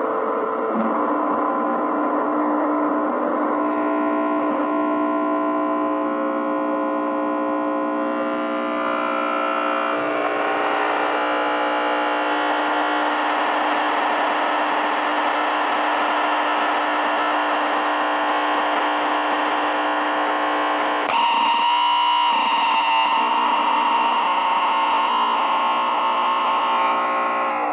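Distorted drone and buzz from a ProCo RAT and Marshall Guv'nor distortion pedal chain through a Marshall mini-stack amp, with the guitar strings muted. The stacked tones shift and thicken into a dense buzz as the knobs are turned, then jump abruptly louder with a strong whistling tone about 21 seconds in.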